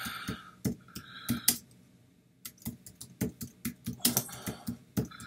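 Keys tapped on a computer keyboard: irregular clicks, several a second, with a short pause about two seconds in.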